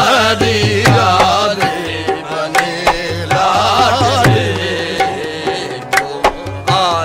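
Qawwali music: a singer's fast, ornamented vocal runs over a steady drone, with tabla strokes keeping the beat.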